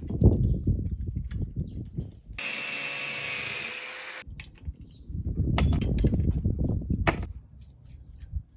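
An angle grinder runs with a steady whirr for about two seconds in the middle, starting and stopping abruptly. Before and after it come scuffing handling noises and light clicks from an aluminium-finned, copper heat-pipe CPU cooler being turned over in the hands.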